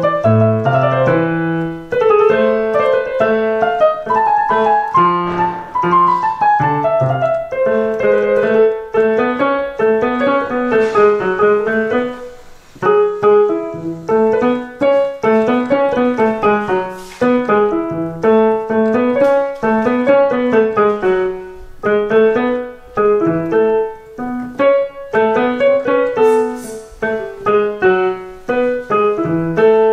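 Digital piano played with both hands by a child, a melody over a lower part, note after note at a moderate pace, with a short break about twelve seconds in.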